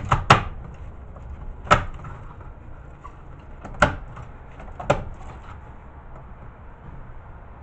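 Sharp clicks and knocks of VHS player parts being handled and set down on a wooden workbench, five in about five seconds, then only faint steady background noise.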